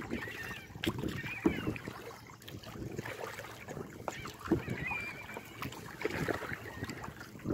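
Kayak paddle strokes splashing and dripping in lake water at intervals, with a few short wavering bird calls over them.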